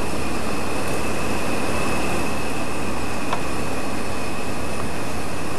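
Large mobile crane's engine running steadily under load while holding the timber bridge aloft, with a steady high whine over the low rumble and a faint click about halfway through.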